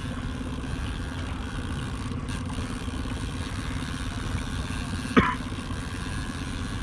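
Boat outboard motor running steadily at low trolling speed, a constant drone, with wind and water noise. A brief sharp knock about five seconds in.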